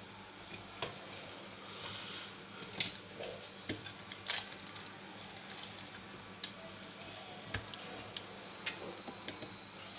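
Irregular sharp clicks and light knocks from an opened computer power supply's circuit board and metal case being handled, about a dozen in all, the loudest about three seconds in, over a faint steady low hum.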